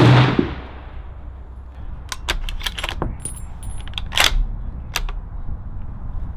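A 300 Win Mag bullpup rifle fires once, very loud, right at the start, its report echoing away over about a second. Then comes a string of light, sharp metallic clicks and clinks, the loudest about four seconds in.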